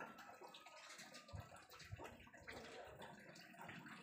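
A cat lapping water from a basin: faint, quick wet licks and small splashes, with two soft low thumps about a second and a half in.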